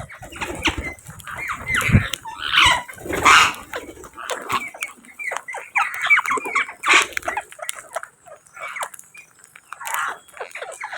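Parrots calling: a dense run of short chattering squawks, with a louder squawk about three seconds in and a dull low thump about two seconds in.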